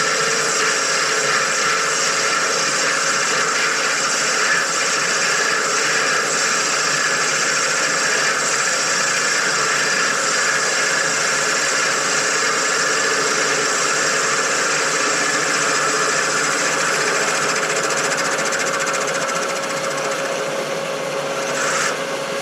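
Metal lathe running steadily while boring out the inside of a Nathan K5 train horn bell to a big bore, a continuous machining noise with a steady whine.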